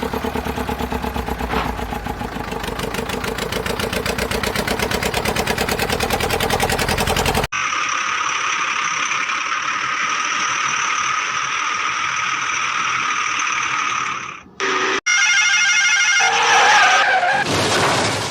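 A run of edited engine and machine sound effects with abrupt cuts. First comes a fast-pulsing engine drone for about seven seconds. It then switches to a steady whining hum with a brief dropout, and a warbling, pulsing tone near the end.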